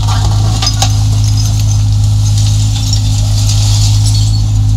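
A 1.7-ton Yanmar mini excavator's diesel engine running steadily, with scattered clinking and rattling of broken concrete and brick as the bucket moves through the rubble.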